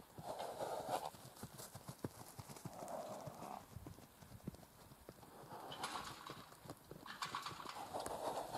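Hoofbeats of a gaited Peruvian Paso mare moving in a circle on the longe line, a quick, even run of soft footfalls, broken by three short breathy sounds.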